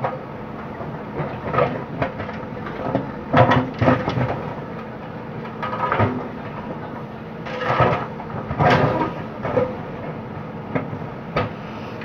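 JCB backhoe loader's diesel engine running steadily while its backhoe bucket digs through broken brick and rubble, making irregular bursts of scraping and clattering, the loudest about three and a half to four seconds in and again around eight to nine seconds.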